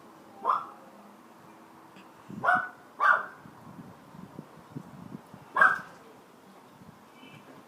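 Four short, loud animal calls with an echo: one about half a second in, a pair close together around two and a half to three seconds, and one more near the end. The uploader takes them for an unfamiliar bird but is not sure.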